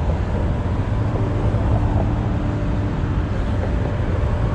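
Steady low rumble of road traffic, with a faint steady engine hum.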